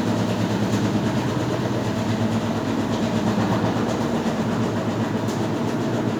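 Electrolux LAC16 washing machine running with a loud, steady mechanical hum and a fast rattle, with a few light clicks. The noise is the knocking its owner complains of in a machine only 13 days old.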